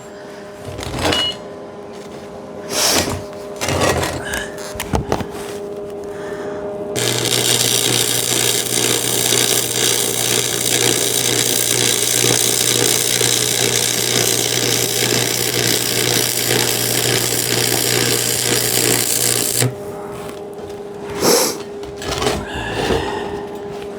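Arc welding: the electric arc hissing and crackling steadily with a low buzz, struck about seven seconds in and cut off suddenly some thirteen seconds later. A few knocks and taps on the metal come before and after it.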